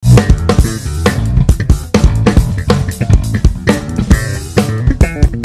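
Peavey Cirrus 5 five-string electric bass played fingerstyle in a groove, with a drum kit playing along. The band breaks off for a moment just before two seconds in, then comes back in on a hit.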